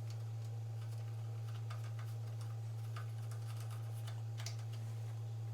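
Scattered light clicks and taps of small engine parts being handled and fitted during reassembly of a small engine's carburetor and air filter, over a steady low hum.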